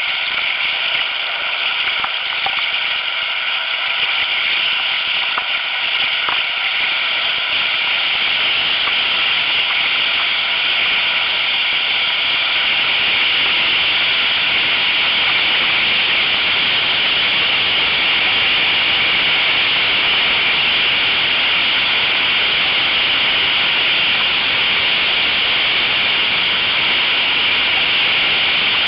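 Steady rushing and hissing of whitewater from a river standing wave, heard close up from a kayak surfing on it. The river is running slightly high. The noise is loud and even, growing a little louder from about ten seconds in.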